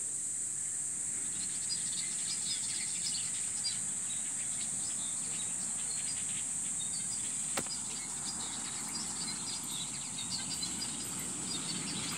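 Outdoor ambience: a steady, high-pitched insect drone with scattered short bird chirps, and a single sharp click a little past halfway.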